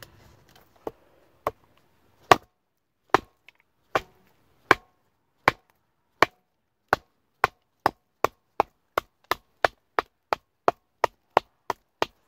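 J.Adams survival knife chopping into a lichen-covered branch resting on a log: a long run of sharp chops, about one every three quarters of a second at first, quickening to about three a second in the second half.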